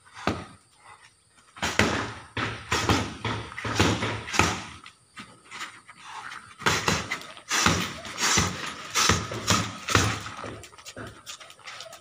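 Gloved punches landing on a hanging heavy bag in quick combinations, starting about a second and a half in, with a short pause midway. A sharp exhale of breath goes with the strikes.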